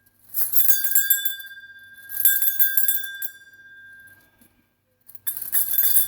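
Stainless steel bell cups of a parrot toy ringing: two clear strikes, each leaving a long steady ringing tone, then a burst of jangling clinks near the end.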